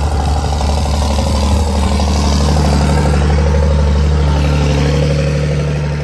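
Tractor engine running under load as it pulls a plough through sticky, wet ground, a loud steady roar that grows to its loudest about four seconds in and drops away near the end.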